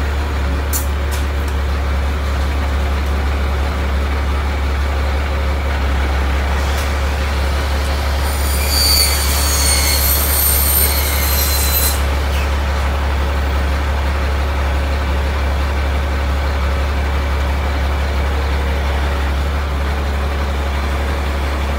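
Crane truck's engine running steadily at a constant speed. About eight seconds in, a high-pitched squeal with overtones sounds for about four seconds, sliding slightly down in pitch, and then cuts off.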